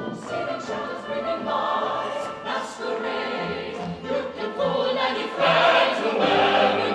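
Choir and chamber orchestra performing a Broadway musical number, massed voices singing over the full orchestra.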